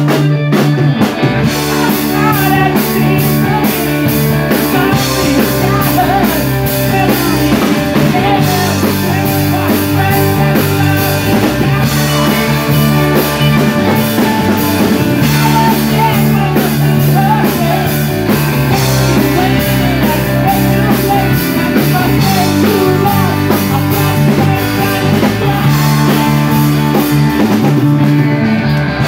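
Live rock band playing loud: amplified electric guitars over a drum kit keeping a steady beat.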